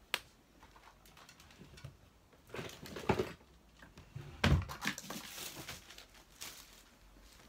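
Rummaging sounds as items are handled and picked up: rustling and scraping in short bouts, with a sharp click at the start and a louder knock about four and a half seconds in.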